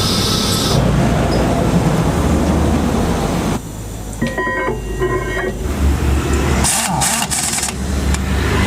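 Heavy truck engine running, in pieces that change abruptly: a dense rumble, then about three and a half seconds in a quieter stretch with a few short steady tones, then a steady low hum with brief hissing bursts near the end.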